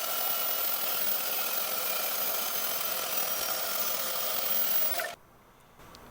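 Electric power tool running steadily with a whining tone, working the steel square tubing, then shut off abruptly about five seconds in.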